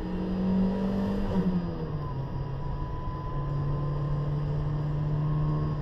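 1986 Toyota MR2's mid-mounted four-cylinder engine pulling under way, heard loud inside the cabin. The revs drop about a second and a half in, then climb steadily again.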